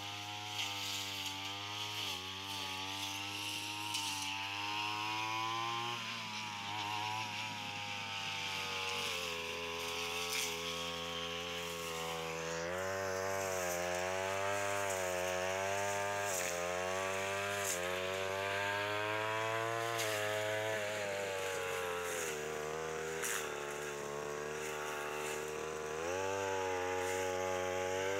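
Backpack brush cutter's small petrol engine running under load while cutting grass, its pitch dropping and climbing again several times as the throttle is eased and opened, with a few sharp ticks.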